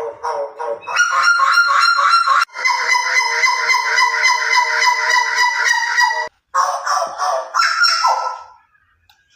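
Butcherbird calling: long runs of rapidly repeated notes, several a second. The calls break off briefly a little after six seconds, resume, and stop shortly before the end.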